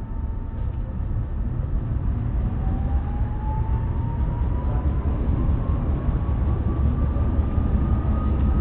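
Tram heard from inside the car: a steady low rumble of wheels on rail, with a motor whine that rises steadily in pitch from a couple of seconds in as the tram gathers speed.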